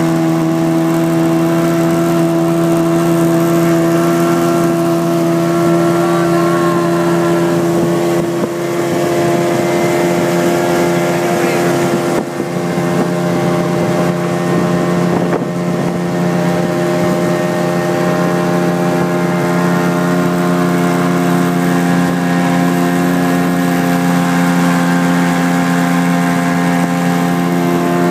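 Motorboat's outboard engine running steadily at cruising speed, over a steady rush of wind and water. Its note shifts slightly about twelve seconds in.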